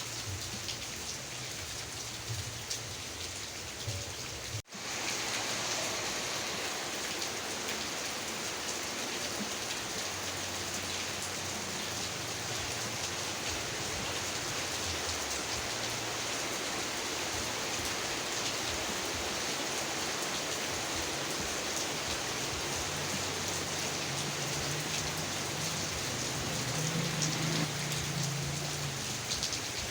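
Heavy rain falling steadily, a dense even hiss of drops. About five seconds in it cuts out for an instant and comes back slightly louder.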